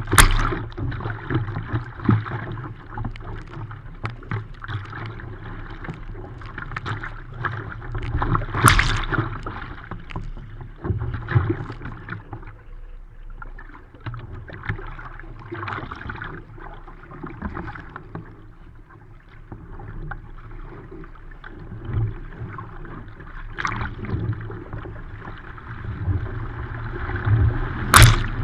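Sea water splashing and slapping against a Fenn Bluefin S surfski's hull as it is paddled through choppy water, with irregular splashes from the waves and paddle strokes. A loud splash about a third of the way in, and another near the end as a burst of spray washes over the deck.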